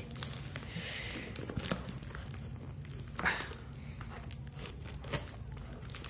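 Plastic parcel wrapping crinkling as it is handled and cut at with scissors, with two sharper crackles about three and five seconds in.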